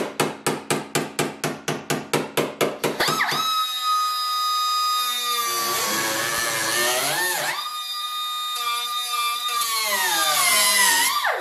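A fast run of hammer blows on the steel door edge, about five a second, stops a little over three seconds in. An electric angle grinder then starts and cuts into the door's sheet steel, its whine sagging as the disc bites and picking back up as it eases off.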